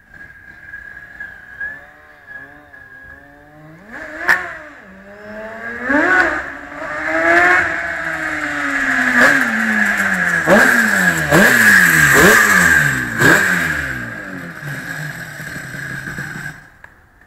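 Yamaha TZ350H two-stroke parallel-twin racing motorcycle being ridden: the revs climb as it accelerates, then rise and fall in a string of sharp rev spikes about once a second with the pitch dropping between them as it slows. The sound falls away sharply near the end.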